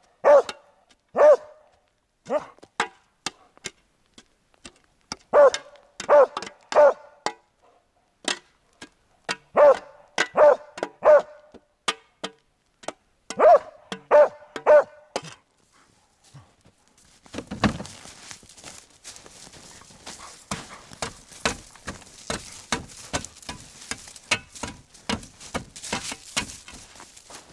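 A dog barking in short, sharp barks, mostly in quick groups of two or three, for about the first fifteen seconds. Then comes a steady crunching and scraping in snow with many quick clicks.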